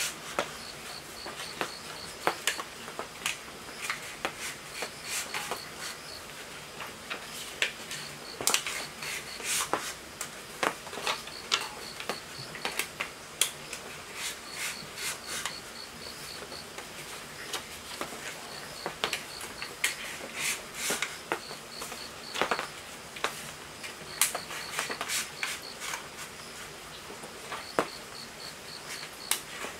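Hand sanding inside the stator bore of an old electric motor, a folded sheet of abrasive paper rubbing on the metal in irregular scratchy strokes. Behind it an insect chirps in short pulsed trills that come and go.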